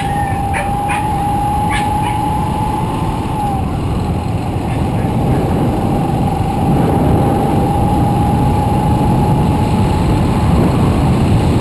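Motorbike riding along at a steady speed: engine, road and wind noise on the microphone, with a steady high whine through most of it and a few clicks in the first two seconds.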